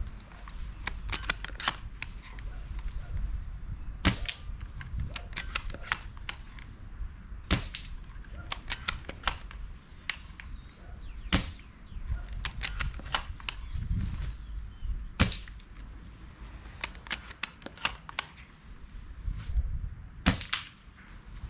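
Silverback TAC-41P airsoft bolt-action sniper rifle being fired several times, each sharp shot spaced a few seconds apart, with clusters of mechanical clicks and clacks in between as the bolt is worked.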